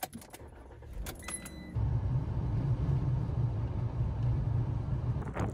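Keys jingle at the Ram ProMaster van's ignition as a low engine rumble comes up. About two seconds in, this gives way to a loud, steady low rumble of the van's engine and tyres, heard from inside the cab at highway speed.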